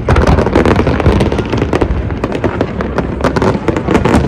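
Fireworks display: a rapid, dense barrage of crackling pops and bangs over a continuous low rumble.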